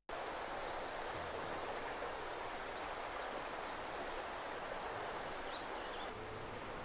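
The River Teith rushing steadily over rapids, an even, unbroken roar of water.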